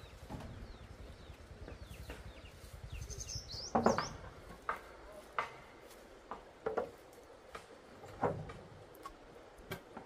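Scattered knocks and taps at irregular intervals, the loudest about four seconds in, with a bird chirping briefly just before it.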